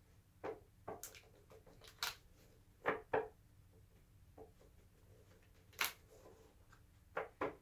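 A deck of cards and its box handled on a wooden board: a scattering of short clicks and taps, with two quick pairs of sharper knocks, one about three seconds in and one near the end.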